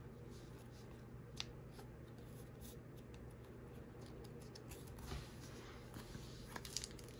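Faint handling sounds: a few soft ticks and rustles of a trading card being slid into a plastic card sleeve, over a steady low room hum.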